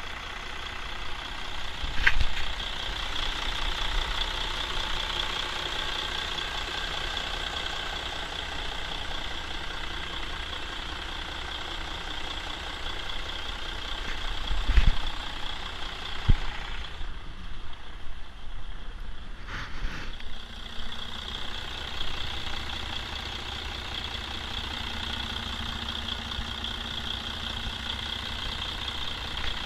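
Mercedes-Benz MBE4000 inline-six diesel truck engine idling steadily, heard close up from the open engine bay. It runs and holds an even idle. A few short thumps come through, the loudest about halfway through.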